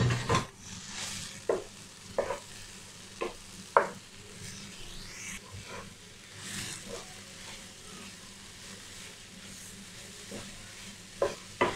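Sliced button mushrooms being stirred into a thick masala in a non-stick frying pan with a spatula: a soft steady sizzle with scattered scrapes and knocks of the spatula against the pan.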